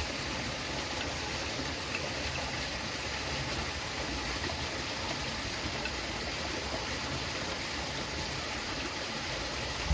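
A stream flowing with a steady rushing sound.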